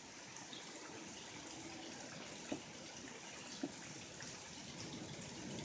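Steady rain falling and dripping, with two sharp drip taps about two and a half and three and a half seconds in.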